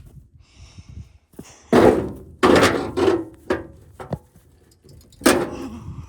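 A series of heavy metallic thunks on a derelict old car's body, about five or six hits at irregular intervals, each with a short ring.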